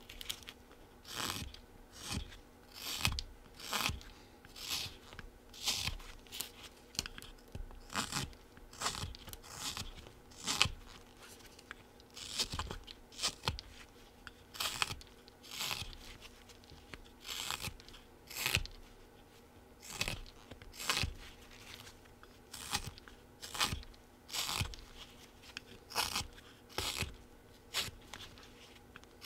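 Folding carving knife (a Flexcut Whittlin' Jack) taking scooping cuts in a small wood blank: a steady run of short, crisp slicing strokes, a little over one a second, each the sound of the blade shaving off a chip.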